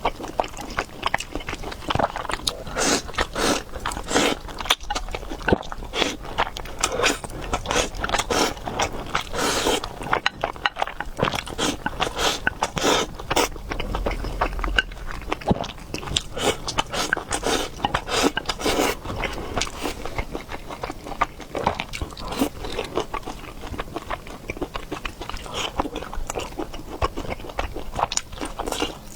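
Close-miked chewing and biting of food, a dense run of irregular wet clicks and smacks.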